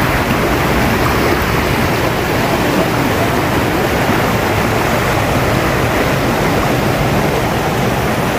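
Steady rush of river water running fast over rocks.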